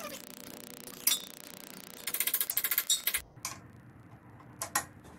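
Socket ratchet clicking: one sharp click about a second in, then a quick even run of about ten clicks a second as the handle is swung back, then a few single clicks, while a bolt on a pillow-block bearing cap is being loosened.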